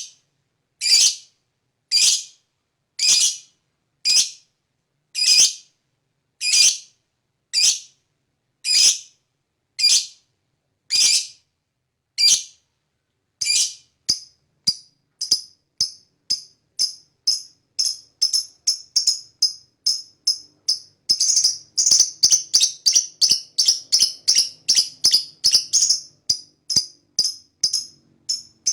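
Lovebird calling: shrill, harsh calls spaced about a second apart, then shorter chirps that speed up into a rapid, continuous chattering run (the long 'ngekek') from about two-thirds of the way in.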